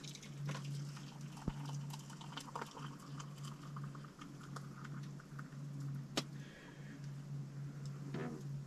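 Brewed coffee poured from a stainless steel coffee pot into a mug, with small metallic clinks, then a sharper clink about six seconds in as the pot is set down. A steady low hum runs underneath.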